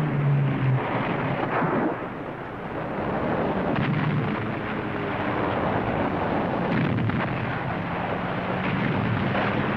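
Battle sound effects: a continuous dense rumble of artillery fire and explosions, with a few sharper cracks spread through it and a low steady hum underneath.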